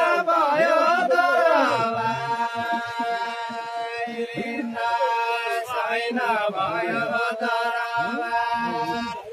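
Voices chanting a drawn-out, wavering melody, with the notes held long and bending up and down. No drums are heard.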